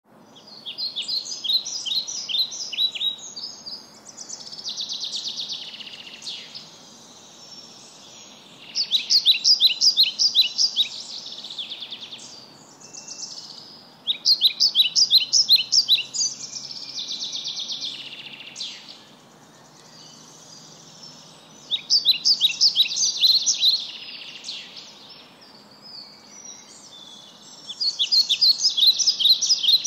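A songbird singing loud phrases of fast, sharp chirps, each phrase lasting two to three seconds and repeating every six or seven seconds, with softer hissy passages between some of them.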